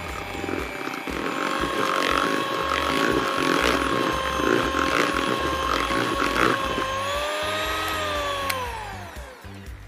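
Electric hand mixer running steadily with a motor whine, its beaters clattering in a bowl of brownie batter. About eight seconds in the motor is switched off and winds down, the whine falling in pitch and fading away.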